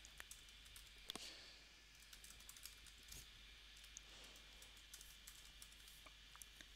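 Faint keystrokes on a computer keyboard: scattered, irregular taps as a line of code is typed.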